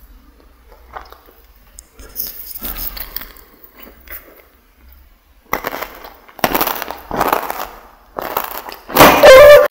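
Close-miked crunching and chewing of crunchy food, in bursts that get louder, about four strong ones from five and a half seconds in. The loudest burst, harsh with a pitched edge, comes near the end and cuts off abruptly.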